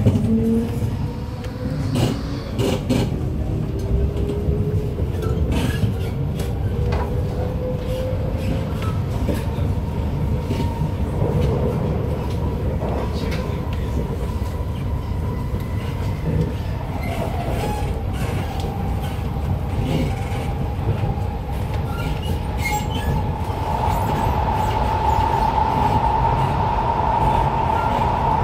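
Interior of an SMRT C751B (Kawasaki/Nippon Sharyo) metro car accelerating: a steady rumble with clicks from the wheels over the rail, and motor whines rising in pitch. Later a high whine grows louder and steadier near the end as the train runs into the tunnel.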